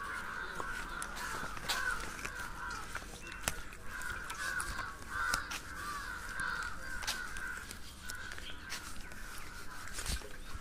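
A flock of birds calling without pause in the surrounding trees, in a dense, chattering chorus that thins out near the end. Sharp clicks and crunches are scattered through it.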